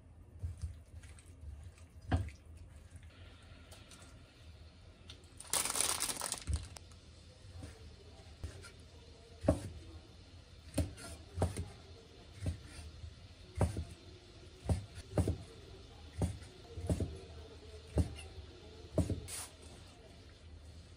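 Chef's knife cutting chikuwa into pieces on a wooden cutting board: about a dozen sharp chops, roughly one a second, through the second half. Before that, hands rub salt into konnyaku pieces, with a loud rush of noise lasting about a second some six seconds in.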